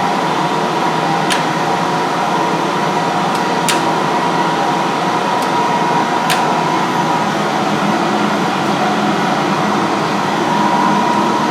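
Hendey lathe running under power from its DC motor drive, spindle in direct gear: a steady mechanical whir with a thin steady whine and a few light ticks.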